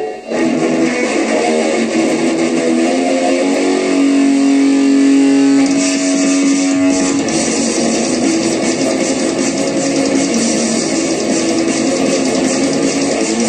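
Guitar music, with a long held low note about four seconds in and a brighter, fuller sound from about six seconds in.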